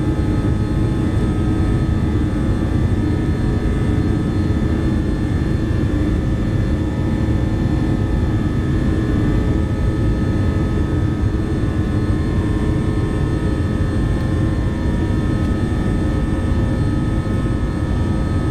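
Steady flight-deck noise of an Avro RJ100 in its climb: rushing airflow and the hum of its four Honeywell LF507 turbofans at climb thrust, with a few constant steady tones.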